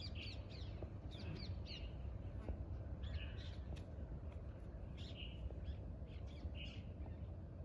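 Birds calling: clusters of short chirping calls, some sliding down in pitch, every second or two over a steady low rumble.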